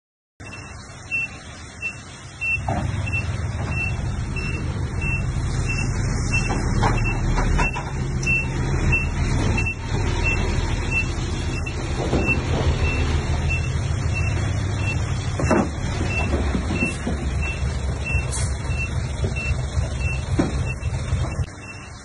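Bulldozer's diesel engine running and growing louder about two seconds in, with its reversing alarm beeping steadily about twice a second as the machine backs up. A few metallic clanks break in.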